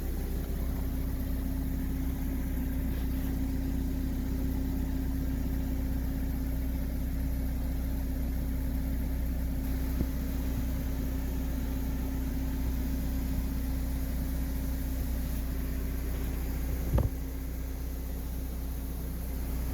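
Toyota GT86 running steadily, turning its raised rear wheel on the newly fitted rear wheel bearing, which spins without any bearing noise. A single knock comes near the end, and after it the sound is slightly quieter.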